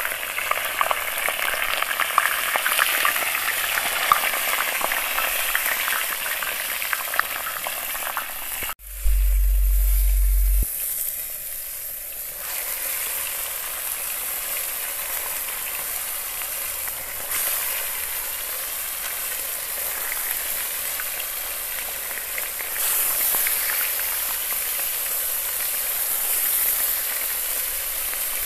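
Nutria meat sizzling and crackling in hot fat on a saj, a domed steel griddle. About nine seconds in, the sizzle breaks off and a low hum fills a second and a half, then the frying resumes, somewhat quieter.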